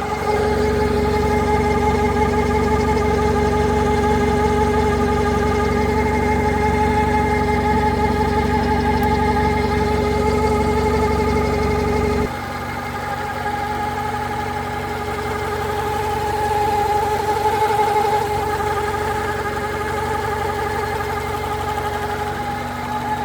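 2001 Honda Accord 2.3L four-cylinder engine running with a steady whirring whine that appeared after its timing belt kit was replaced. About halfway through, the low rumble and the lower whine drop out suddenly and it gets quieter, then swells slightly a few seconds later.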